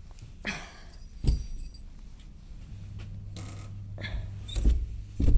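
Handling clicks and rustle, with a short metallic jingle about a second in; a steady low mains hum from electrical equipment comes on about three seconds in, and two heavy thumps come near the end.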